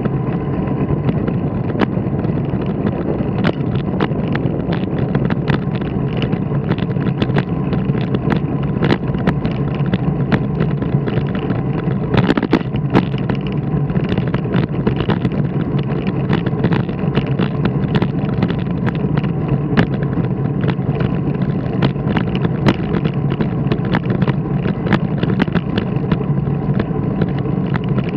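Steady rumble of a ride rolling over asphalt, with a low hum and many small knocks and rattles, a brief cluster of them about twelve seconds in.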